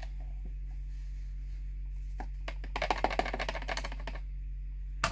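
Granular activated charcoal rattling inside a PVC filter tube as the tube is jostled to settle the media, in a burst of about a second near the middle. There is a sharp click near the end, over a steady low hum.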